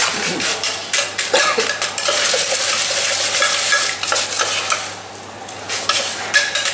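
A metal utensil stirs and scrapes inside a stainless steel pot of liquid nitrogen, with quick repeated clinks against the metal and the hiss of the nitrogen boiling off as it freezes yogurt mousse rock hard. The stirring eases briefly about five seconds in.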